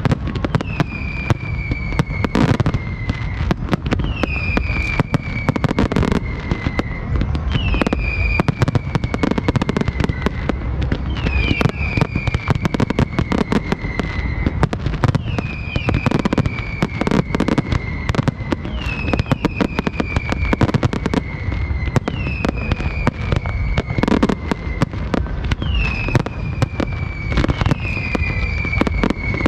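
Fireworks display: a dense run of bangs and crackling from bursting aerial shells, with heavier booms every several seconds. Over it, a whistle that falls in pitch repeats about every two seconds.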